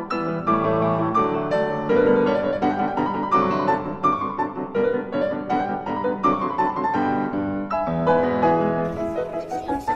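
Background piano music: runs of notes moving up and down over low held chords.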